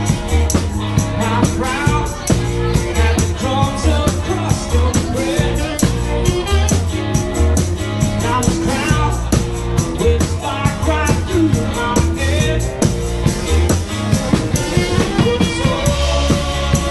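Live rock band playing: a man sings into a microphone over electric guitars and a drum kit, with a steady beat and a pumping bass line.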